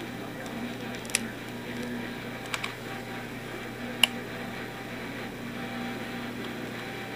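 A few light plastic clicks from a micro RC helicopter being handled in the fingers, the sharpest about four seconds in, over a steady low room hum.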